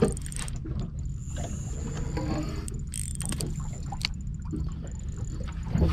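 A boat's motor running with a steady low hum, with a few scattered knocks and clatter in the boat.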